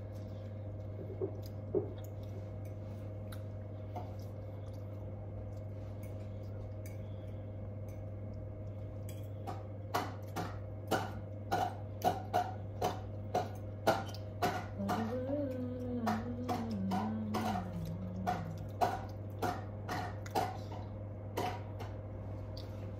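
Eating sounds at a table over a steady low hum: from about ten seconds in, a run of sharp clicks and taps, roughly one or two a second, with a low drawn-out hummed voice for a few seconds in the middle.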